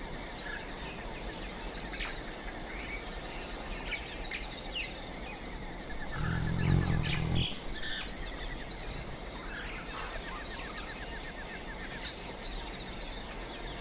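Birds chirping and calling throughout. About six seconds in, a tiger gives a low growl lasting about a second as it snarls with its mouth open.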